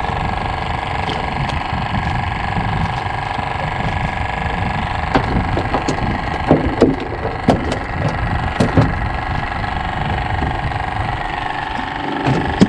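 A fishing boat's engine running steadily, with a few sharp knocks about halfway through.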